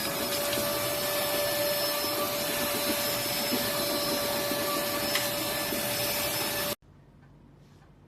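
Cordless handheld vacuum cleaner running with a steady high whine over a rushing hiss, then cutting off suddenly near the end.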